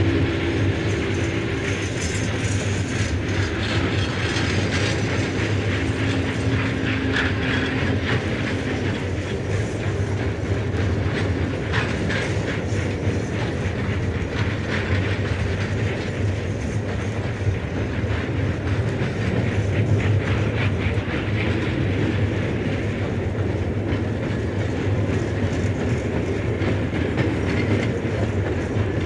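Vinyl record playback of a steam locomotive recording: the continuous rumble and clatter of a train under way, with held low tones over the first several seconds.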